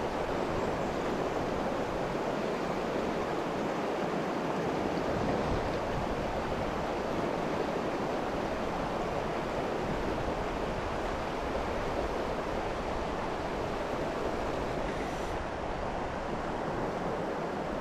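A river's current rushing steadily, an even noise of flowing water that holds unchanged throughout.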